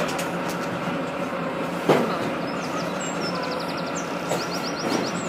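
Steady running of an idling livestock lorry's engine, with one sharp knock about two seconds in.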